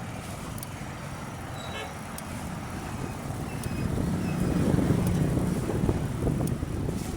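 Road traffic: the low rumble of motor vehicles, with one growing louder as it passes about halfway through.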